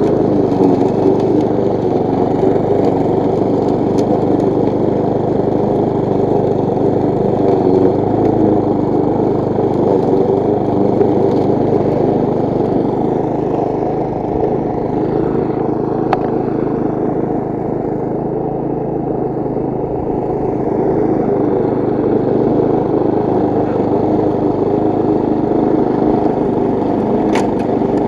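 Briggs & Stratton single-cylinder engine of a petrol push mower running steadily while cutting grass, with a few sharp ticks along the way.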